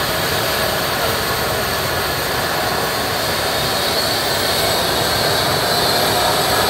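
Eurocopter EC135 air ambulance helicopter running on the ground during start-up, its twin turbine engines spun up: a steady high turbine whine over the rush of the turning rotor, slowly getting louder toward the end.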